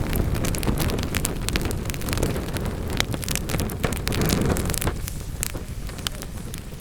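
Wood fire burning in a fireplace, crackling with many sharp pops over a low rushing sound of the flames. The rushing eases off near the end while the pops continue.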